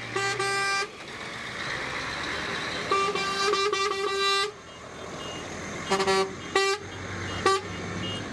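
Truck horn honking as a convoy of trucks drives past: a short blast at the start, a longer broken blast about three seconds in, then three quick toots near the end, over the steady noise of passing traffic.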